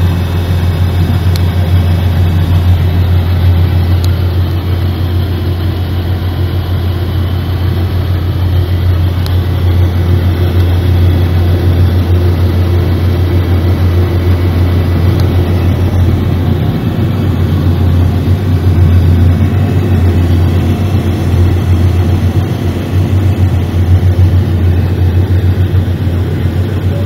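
Vehicle engine running steadily, heard from inside the cab as a loud, even low hum.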